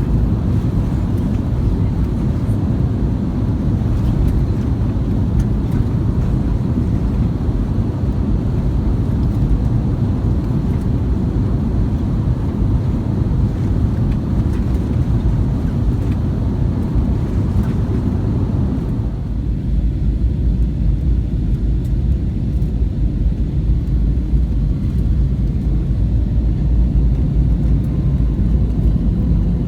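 Jet airliner cabin noise: a steady deep rumble of engines and airflow with a rushing hiss over it. About two-thirds of the way through, the higher rushing part drops away quite suddenly, leaving the deep rumble.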